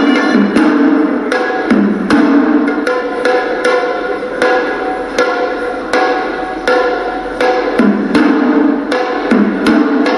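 Hewisi, traditional Sri Lankan temple drumming: drums struck in a quick, repeating rhythm under a sustained, reedy horanewa pipe melody.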